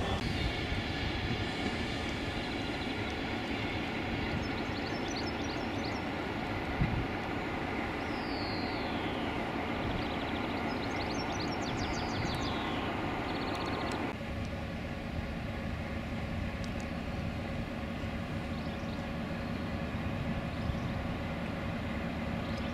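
Freight train running past, its wagons making a steady rumble that eases a little about fourteen seconds in.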